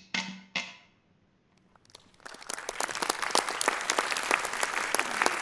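Two short fart sputters with a low buzzy tone, then about two seconds in, applause starts up and carries on.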